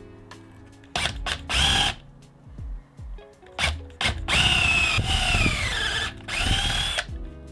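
Cordless drill boring a 3/8-inch spade bit into the end grain of an old reclaimed wooden beam. It runs in a few short bursts, then for about three seconds near the end, when the motor whine drops in pitch as the bit bites and rises again.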